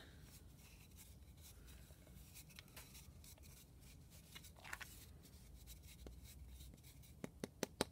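Near silence with faint rubbing and light clicks of a leather-hard clay tube being worked over a wooden dowel, the inside seam pressed and blended; a few sharper ticks near the end.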